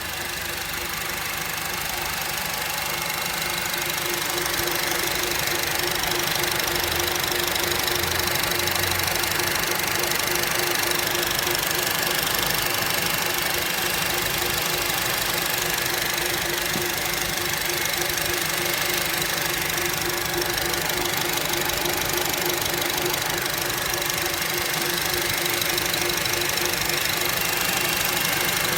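Honda Civic Type R FN2's 2.0-litre four-cylinder engine running, with a steady groaning noise from the engine bay over it. The sound grows a little louder over the first few seconds and then holds steady.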